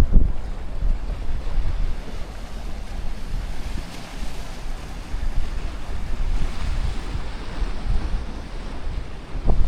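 Mediterranean sea waves washing on the shore, a hissing wash swelling through the middle, with wind buffeting the microphone as a low rumble.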